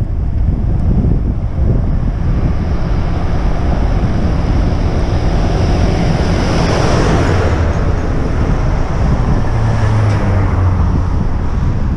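Wind rushing over the microphone of a rider moving along a road, with oncoming traffic passing close by. A tractor goes past with a swelling rush about six to seven seconds in. A truck passes near the end with a low engine drone.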